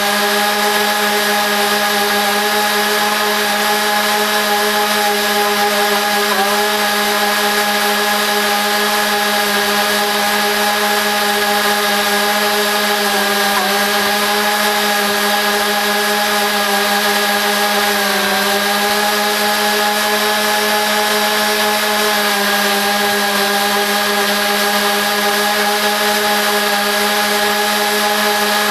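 Lawn mower engine running steadily, played back four times fast so that it comes out as a high, even whine. Its pitch sags briefly a few times.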